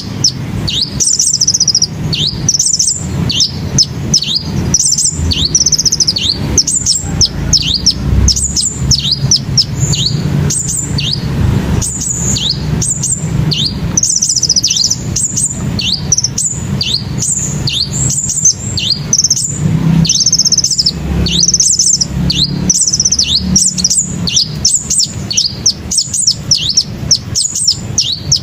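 Sunbirds (kolibri) chirping and twittering in the treetops: rapid, high-pitched chirps that sweep downward, repeated continuously with short trills, over a low steady rumble.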